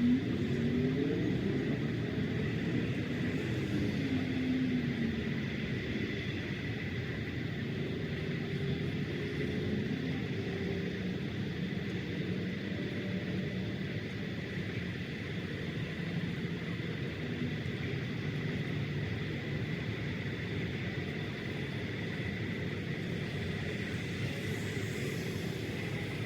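Steady low rumble of distant vehicle noise, with a faint engine pitch that rises and falls in the first few seconds.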